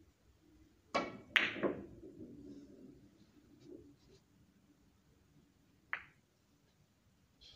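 Three-cushion carom billiard shot: the cue tip clicks on the cue ball about a second in, and a louder ball-on-ball click follows a moment later. Then a few knocks as the balls come off the cushions and a low rumble of balls rolling on the cloth. Another sharp click comes about six seconds in.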